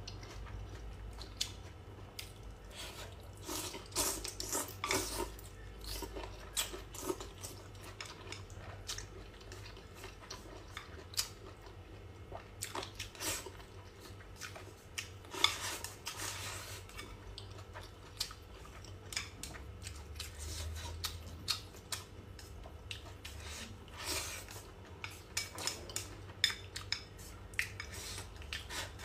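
Close-up eating sounds: wooden chopsticks tapping and scraping against a bowl in a run of scattered, irregular clicks, with chewing of boneless chicken feet in chili sauce.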